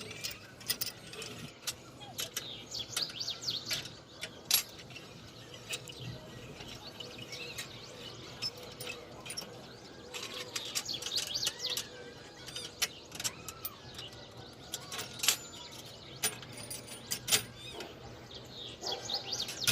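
Small birds chirping over and over, with scattered sharp clicks and light knocks throughout.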